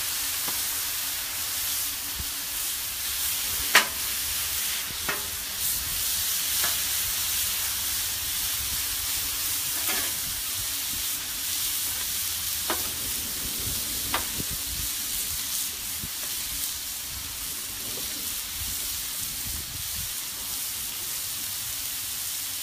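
Raw bite-size chicken thigh pieces sizzling steadily on a hot Blackstone steel flat-top griddle, freshly put on. A scatter of sharp pops comes through the sizzle, the loudest about four seconds in, and the sizzle eases slightly toward the end.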